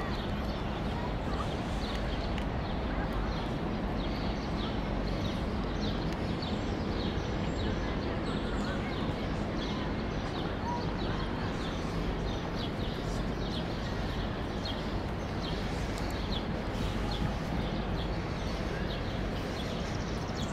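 Footsteps on a paved path, light even ticks about two a second, over a steady outdoor city hum.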